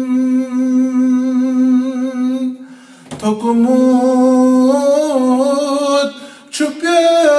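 A man's solo voice singing a Kashmiri naat, drawing out long held notes with a slight wavering ornament, and pausing briefly for breath about three seconds in and again about six seconds in.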